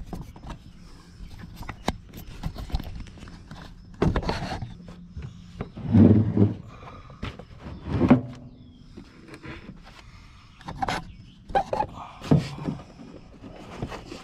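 Riding-mower deck being shifted and pushed into place under the tractor: irregular knocks, clunks and scrapes, with the loudest thumps about six and eight seconds in and a quicker cluster of knocks near the end.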